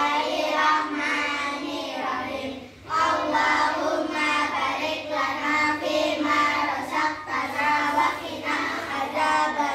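Young girls singing or chanting together in unison, with a short pause about three seconds in.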